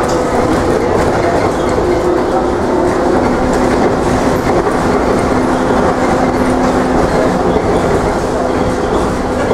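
Cabin noise of a Škoda 14 Tr trolleybus under way: the electric traction drive's steady hum, shifting a little in pitch, over a continuous road rumble and body rattles.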